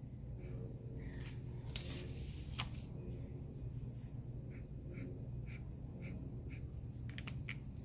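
Marker drawing on paper in short strokes, squeaking faintly about twice a second in the second half, with a couple of sharp clicks before that, over a faint steady hum.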